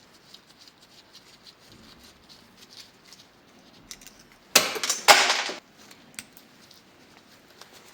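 Light clicks and handling of small metal parts and tools, then two short, loud noisy bursts back to back about four and a half seconds in.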